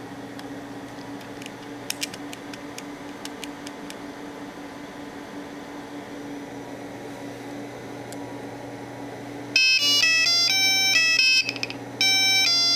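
An 8051 microcontroller alarm clock sounding its alarm: a buzzer plays a simple, loud electronic melody of short stepped notes, starting near the end. Before that there is only a faint steady hum and a few light clicks.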